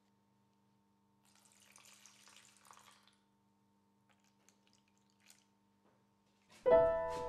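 A faint trickle of runny paint in a paint tray for about two seconds, then a few faint ticks. Near the end, piano music begins and is the loudest sound.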